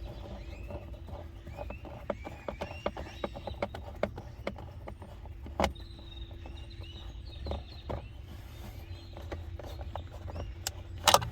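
Screws being driven by hand into the plastic steering-column shroud of a 2004 Ford Explorer, giving scattered small clicks and knocks, with a louder clatter near the end.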